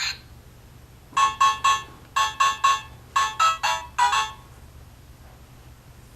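Short electronic tune from a children's play-a-sound book's small speaker: quick beeping notes in three groups of three, then two more, stopping a little over four seconds in.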